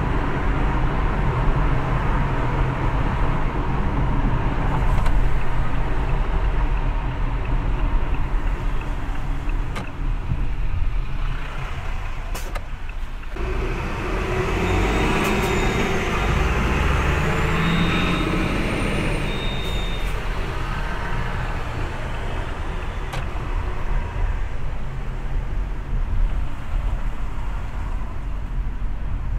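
A car driving: steady road and engine rumble. About halfway through it grows fuller for several seconds, with a faint high whine rising and falling.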